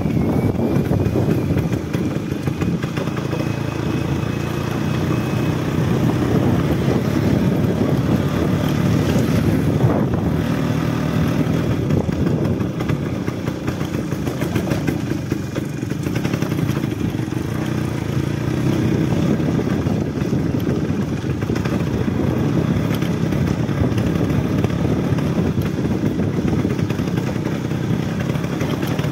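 Suzuki Samurai motorcycle's two-stroke single-cylinder engine running under way as the bike is ridden, its note shifting up and down with the throttle.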